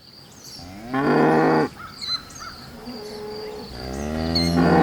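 A cow mooing twice: a short moo about a second in, then a longer moo that grows louder near the end.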